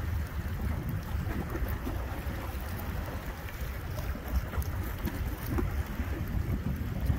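Wind buffeting the microphone in an uneven low rumble, over choppy water.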